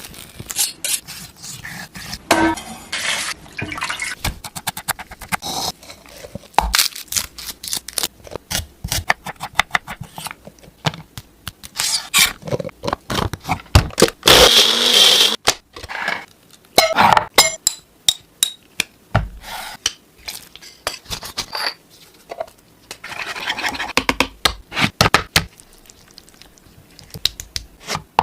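Kitchen preparation sounds for hariyali chicken: many short clinks, knocks and scrapes of utensils against dishes and pans, with a few longer stretches of hissing, running or pouring water, the loudest about halfway through.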